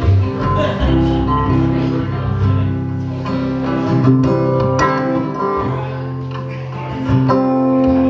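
Acoustic guitar strummed and picked with upright double bass, playing an instrumental passage of a folk-blues song with no singing.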